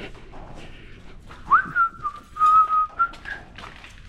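A person whistling: one quick upward sweep, then a held note of about two seconds that wavers slightly.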